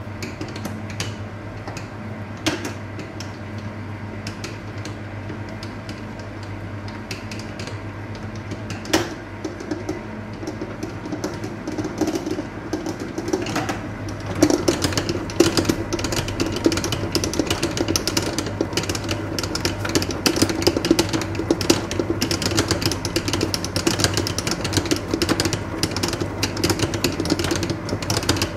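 Commercial planetary stand mixer running, its motor humming steadily while the beater clatters in the steel bowl mixing shortcrust pastry dough. The rattling gets louder and busier about halfway through.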